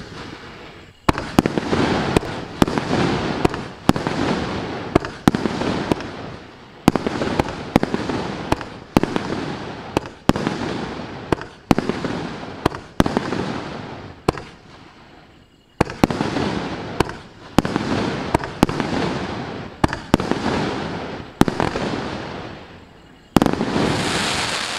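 A Maxsem MC175-19 'City Stories' 19-shot, 42 mm (1.75-inch) fireworks cake firing: sharp launch bangs and aerial bursts in quick succession, each followed by a fading hiss of burning stars, with a loud final burst near the end.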